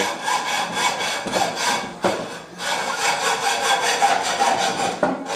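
Hand tools working aluminum tubing: repeated back-and-forth rasping strokes of metal cutting or filing, with a short pause about two seconds in.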